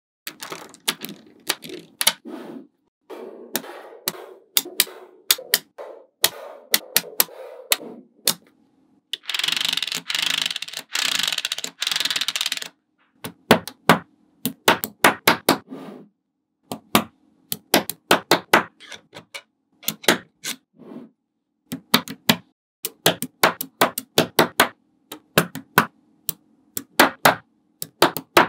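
Small magnetic balls clicking sharply as they snap onto one another, placed by hand in quick irregular runs. About a third of the way in there is a louder continuous rattling of balls for about three seconds.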